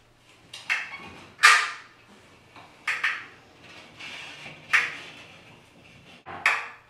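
Manual caulking gun being squeezed while laying a bead of caulk along a bathtub joint: a series of sharp clicks and clacks from the trigger and plunger rod, every second or two, each with a short ring.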